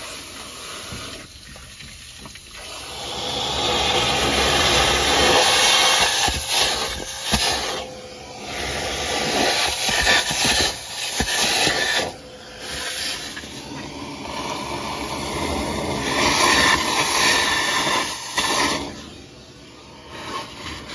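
Water from a hose spraying and splashing into the open cylinder bores of a seized Ford 289 V8, rinsing out the acid and baking-soda residue. The rushing spray swells and eases several times as the stream is moved around.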